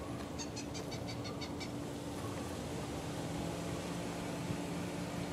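A woodpecker calling: a quick run of about eight high notes, six or so a second, lasting just over a second near the start.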